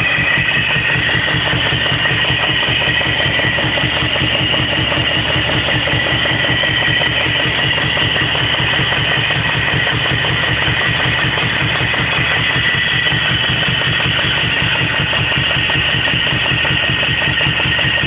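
BMW E34 530i engine idling roughly with a knocking noise and a steady, even run of firing pulses. The rough idle came back after new intake manifold and throttle body gaskets; the owner wonders whether something got into a cylinder or the spark plugs are fouled.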